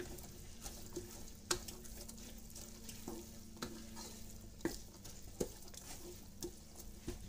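Wooden spoon stirring sliced onions and garlic in hot oil in a kadai, knocking and scraping against the pan at irregular moments over a faint sizzle as the onions start to brown.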